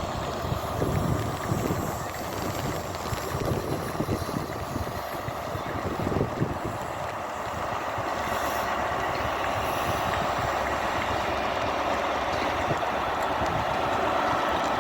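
A train moving slowly off after a stop, its wheels knocking irregularly over the rail joints for the first half. Throughout, heavy rain hisses steadily and wind buffets the microphone.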